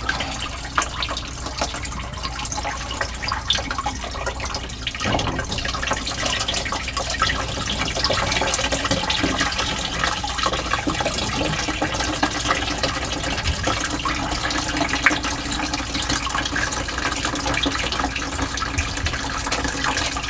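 Water dripping and trickling out of the loosened housing of a whole-house well-water filter into a plastic bucket as the system's pressure bleeds off.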